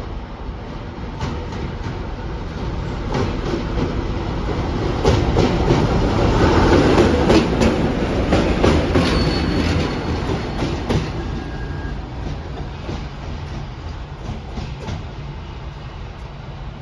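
ChME3 diesel shunting locomotive running light past on its own. The low rumble of its six-cylinder diesel engine swells as it draws alongside, about five to ten seconds in, with its wheels clicking over the rail joints, then fades as it moves away.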